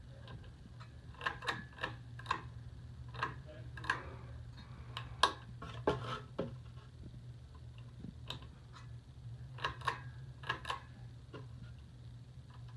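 Four-blade ceiling fan winding down after being switched off: a steady low hum with scattered sharp clicks and ticks at uneven intervals.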